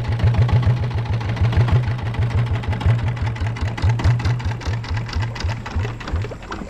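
Small longtail boat engine running with a rapid, even chug of about seven beats a second, slowing and cutting out about six seconds in.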